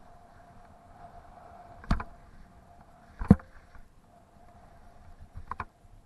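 Skis sliding over packed snow, with sharp knocks about two seconds in and again a second and a half later, and a few lighter clicks near the end.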